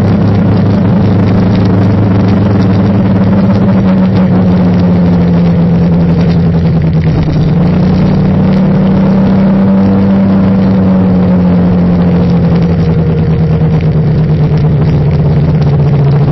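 Engine of the vehicle carrying the camera, running under way in city traffic: a steady low hum that sags and rises a little in pitch with speed, over road and wind noise.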